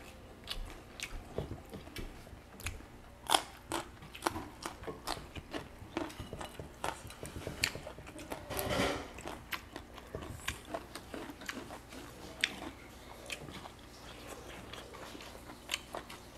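People eating by hand at a table, chewing and crunching food, with many irregular small clicks and smacks.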